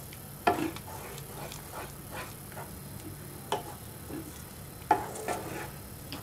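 Spatula stirring thickening vermicelli milk pudding in a pan: irregular soft knocks and scrapes against the pan, about one or two a second.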